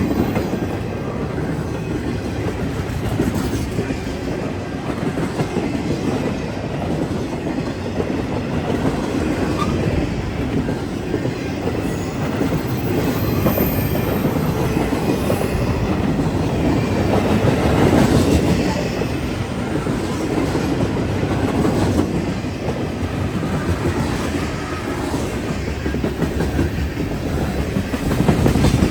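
Freight train cars rolling past close by, a steady rumble of steel wheels on rail.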